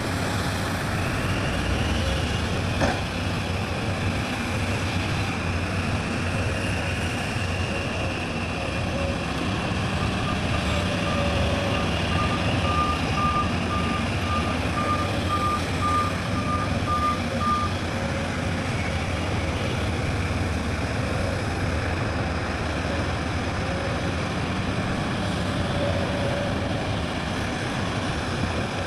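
Heavy diesel machinery running steadily, with a reversing alarm beeping about twice a second for several seconds in the middle. There is one sharp knock about three seconds in.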